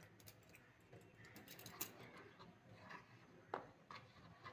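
Faint scraping and clinking of a steel spoon stirring besan (gram flour) and water into batter in a bowl, with a couple of sharper clinks, one near the middle and one about three and a half seconds in.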